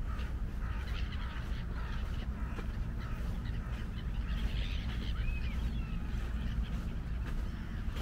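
Birds calling in short scattered notes, with one rising-and-falling call about five seconds in, over footsteps on sand and a steady low rumble.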